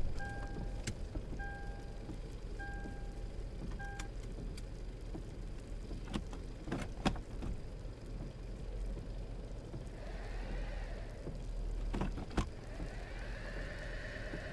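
Car sound effects: a two-note chime beeps about once a second over a low running rumble, with a few clicks. Then the car tries to drive out of deep snow, and twice there is a rising and falling whine of spinning wheels while it stays stuck.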